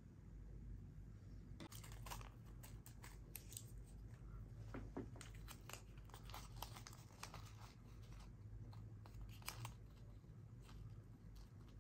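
Faint handling noises: light crinkles and small clicks come and go irregularly for several seconds, as from hands working with small plastic parts and packaging.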